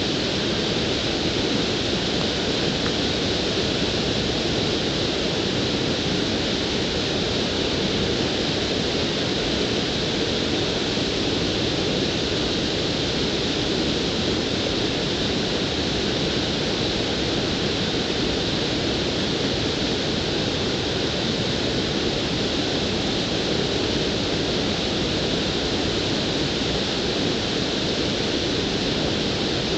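Water pouring over a low concrete weir, a constant, even rush.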